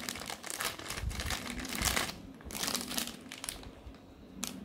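Clear plastic bag crinkling and rustling as it is handled and opened by hand. The crinkling dies down about three and a half seconds in.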